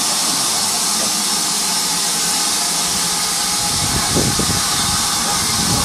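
GWR 56xx-class 0-6-2 tank locomotive No. 5619 letting off steam in a loud, steady hiss, with a low rumble about four seconds in as it moves alongside the platform.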